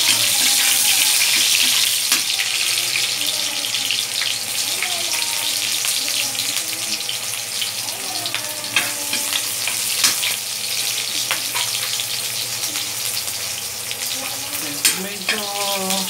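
Chopped onions and garlic sizzling in hot oil in a wok, strongest at the start and easing a little, while a spatula stirs them and now and then scrapes and taps against the pan.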